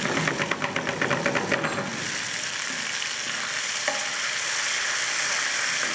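Onion with ginger-garlic and green chilli paste sizzling in oil in a metal frying pan as a slotted spatula stirs it: quick scraping strokes for about the first two seconds, then a steady sizzle.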